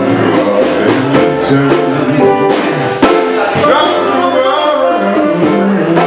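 Jazz sextet playing live: sustained pitched instrument notes over a steady beat of cymbal strokes.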